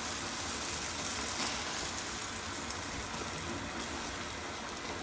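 Egg omelette frying in a hot pan: a steady sizzle.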